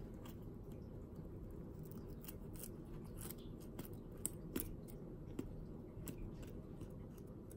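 Fillet knife cutting into a rock bass behind the gills, its blade catching on the scales and skin: faint scattered crackles and clicks, a few sharper ones around the middle, over a low steady hum.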